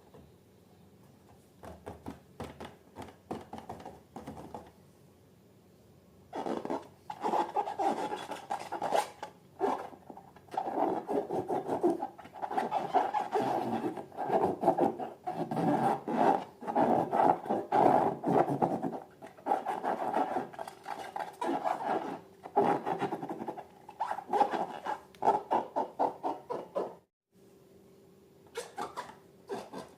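Rubber balloons and slime being handled: a few light clicks, then about six seconds in a long run of quick rubbing and scraping strokes with a faint squeak, which stops abruptly near the end.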